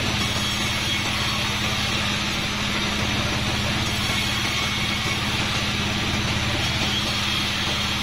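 A 36-inch sawmill band saw running steadily, a low hum under a constant hiss, as a board of kapok (randu) wood is fed through the blade.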